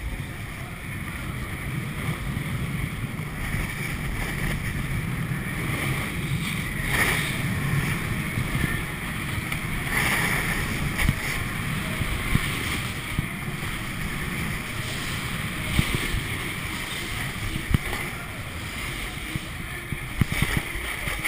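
Skis sliding and carving down an indoor ski slope's snow, a continuous scraping rush with wind buffeting the microphone. A few sharp knocks come in the second half.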